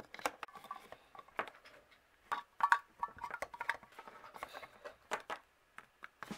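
Small plastic toy figures tapped and hopped by hand along a hard tabletop: a run of light, irregular clicks and taps, with a louder cluster about two and a half seconds in.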